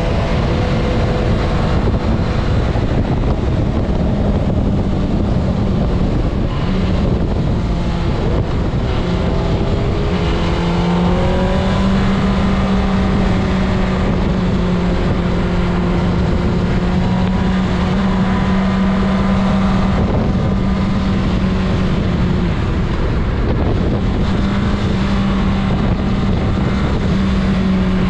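Honda CBR600RR's inline-four engine running at a steady freeway cruise, under heavy wind rush on the microphone. The engine note holds level, stepping up a little about ten seconds in.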